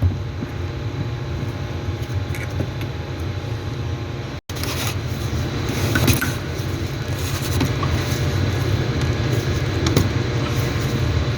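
A steady low machine hum, with a few light clicks and knocks as the fuel pump's retainer ring is worked into place on the tank.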